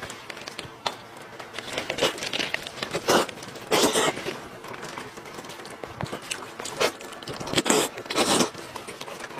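Close-miked eating of a sheep's head: meat being bitten, torn and chewed, with irregular crunches and crinkles, a few louder ones around the middle and near the end.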